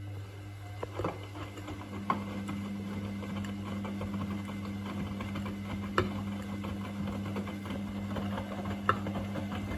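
Front-loading washing machine in the main wash of a Cotton Eco 40 cycle: the drum motor hums steadily as it turns the load, the laundry tumbling in soapy water with a few sharp knocks.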